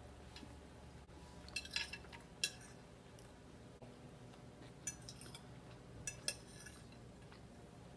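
A metal fork clinking and scraping against a plate as food is scooped up. The sharp clicks come in two short clusters, about a second and a half in and again around five to six seconds in.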